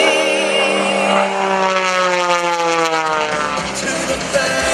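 Extra 330LX aerobatic plane's engine and propeller at high power, the tone falling steadily in pitch as it passes and pulls up into a vertical climb.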